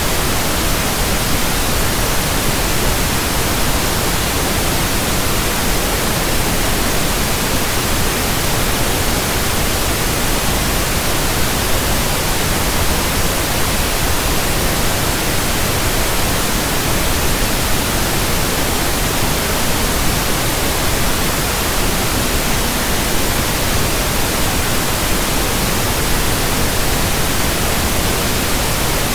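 Steady electronically generated pink noise: an even, constant hiss spread across the whole range with no change in level.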